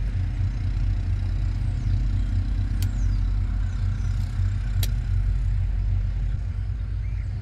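Steady low rumble with two sharp clicks about two seconds apart, as a pick tool works a plastic retaining clip out of the power seat switch trim.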